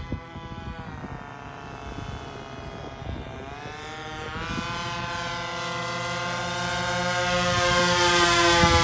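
Twin Evolution gasoline engines of a Cessna 337 RC scale model, front and rear, running in flight. The drone grows steadily louder as the plane comes in close, its pitch dipping and then rising.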